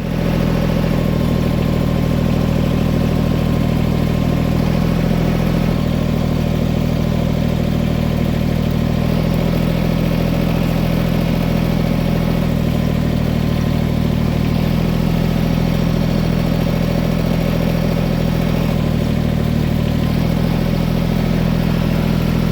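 An engine running steadily, its speed stepping up and down a few times.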